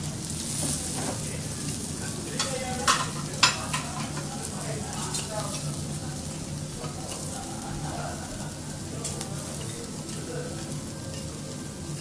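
Food sizzling and frying on a teppanyaki griddle, with a few sharp clicks of metal utensils against the hot plate about two and a half to three and a half seconds in.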